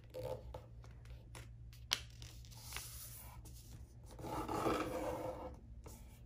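A sheet of junk-mail paper being folded and creased by hand on a wooden tabletop: fingers rubbing and sliding along the fold. A sharp tick comes about two seconds in, and a longer, louder stretch of rubbing follows past the middle.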